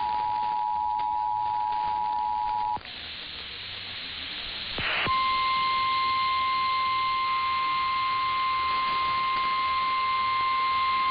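Emergency Alert System two-tone attention signal, a steady dual tone that cuts off about three seconds in. Radio hiss then swells, a short crackle of static comes about five seconds in, and a single steady tone, the NOAA Weather Radio warning alarm tone, takes over and holds over the hiss.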